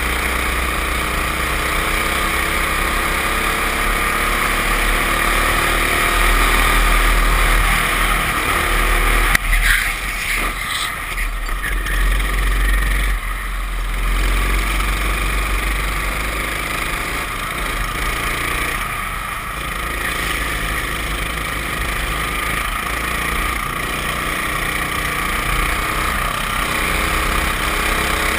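Go-kart engine running hard, heard from onboard the kart, its pitch rising as it accelerates over the first several seconds and then rising and falling through the corners, over a steady low rumble. A sudden loud knock about nine and a half seconds in.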